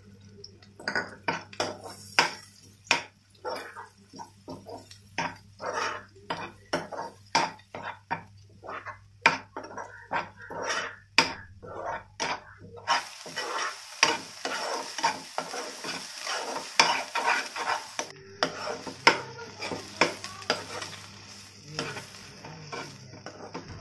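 A perforated steel spatula stirs and scrapes thick gongura paste frying in oil in a nonstick pan, in repeated strokes about two a second, with the oil sizzling underneath. About halfway through, the sizzle becomes a brighter, steadier hiss.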